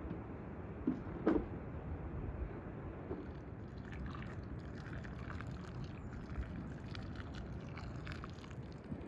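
Water pouring in a thin stream from an enamel kettle into an enamel bowl of whole tomatoes, a steady trickling splash that sets in about three and a half seconds in. Before it, two short knocks, the second the louder.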